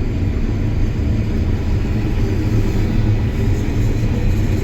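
John Deere S760 combine running steadily while harvesting wheat: a continuous low rumble. It is working under a heavy straw load that pulls hard on the machine.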